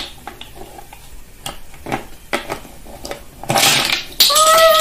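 Hard plastic interlocking toy building blocks clicking and knocking together as they are picked up, pressed onto each other and set down on a table. Near the end comes a louder rustling clatter, then a short, loud high-pitched held sound that drops in pitch as it ends.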